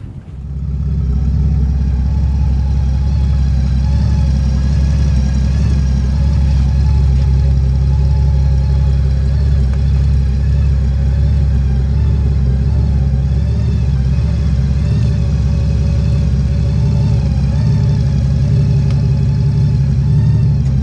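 Large motorcycle engine idling steadily and loudly close by, coming in sharply about half a second in; most likely the 2015 Honda Valkyrie's 1832cc flat-six.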